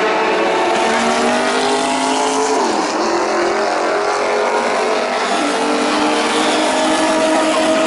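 Mazda 767B race car's four-rotor rotary engine running hard, its pitch climbing steadily, dropping sharply about three seconds in as it changes gear, then climbing again.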